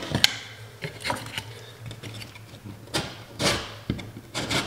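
Utility knife scraping and slicing the ragged paper and gypsum edges of drywall around an electrical box, in a few short rasping strokes, with a sharp click about a quarter second in.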